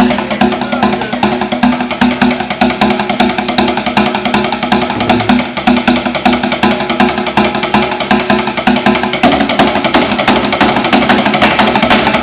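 Rapid, dense stick drumming, many strikes a second, over music with steady held tones; the pattern changes about nine seconds in.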